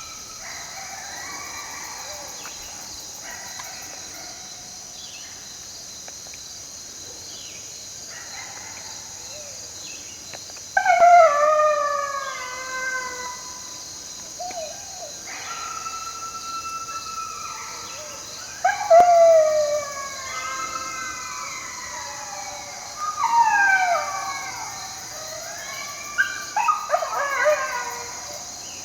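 A group of coyotes howling and yipping in answer to calling, in several bouts of falling, wavering howls mixed with yips. The bouts grow louder and busier in the second half, with the densest chorus near the end.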